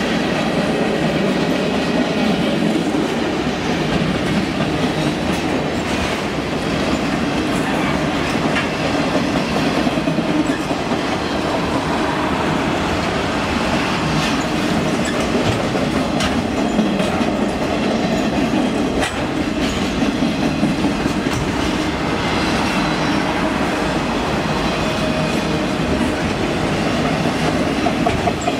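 Freight train cars rolling past on the rails: a steady rolling noise of steel wheels on track with scattered sharp clacks.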